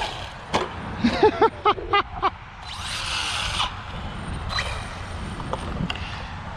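Brushless electric motor of a 1/10-scale Redcat Volcano EPX Pro RC truck whining in several quick rising-and-falling throttle blips while the truck stays put: a drive shaft has popped out, as the owner thinks. A short hiss follows about three seconds in, then a steady low outdoor rumble.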